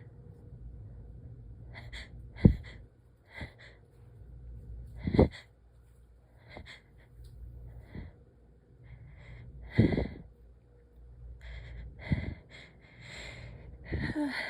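A person in a sneezing fit, sneezing about five times, each a sharp, loud burst a few seconds apart, with gasping in-breaths between them.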